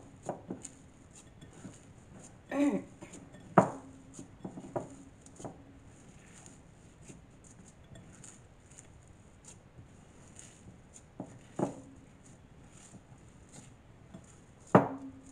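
Hands kneading glutinous rice flour dough in a glass mixing bowl: soft rubbing of the dough, broken by occasional knocks against the glass, the three sharpest each leaving the bowl ringing briefly. A short gliding squeak sounds once, about two and a half seconds in.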